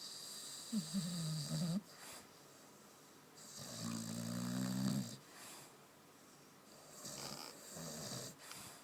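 A sleeping dog snoring: three snores a few seconds apart, the middle one the longest.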